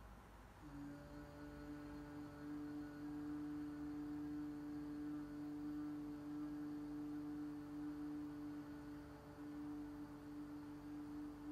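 A woman humming a long, steady closed-lip "Mmm", the M syllable of a mantra chant, starting about a second in and held at one pitch.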